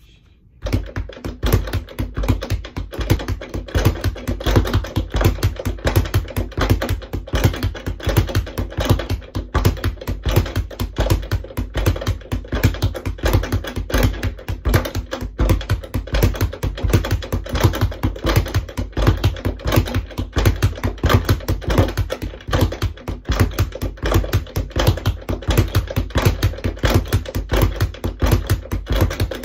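Speed bag being punched in a fast, steady rhythm, rapping against its ceiling swivel mount; it starts about half a second in.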